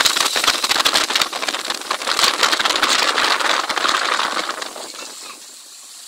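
Rushing wind and road noise from riding in a moving vehicle, full of fine crackling on the microphone, which dies down about five seconds in.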